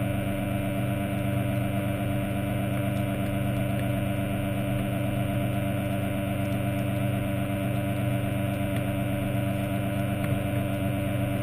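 Underwater scooter (diver propulsion vehicle) motor humming steadily underwater, an even pitched drone with no change in speed. A few faint clicks sound over it.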